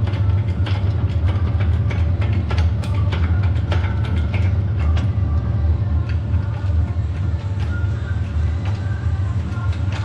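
Irregular metal clicks and knocks of chain and steel as a tractor-type gearbox is hoisted out of a backhoe loader frame on a shop crane, over a steady low hum. The knocks come thickest in the first few seconds.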